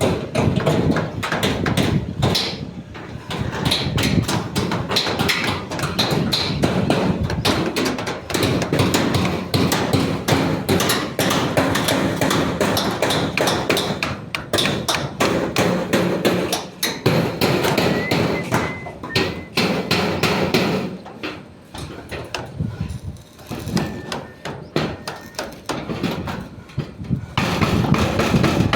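Hammering at a construction site: rapid, irregular hammer blows, several a second, with a few seconds of sparser, quieter strikes in the last third.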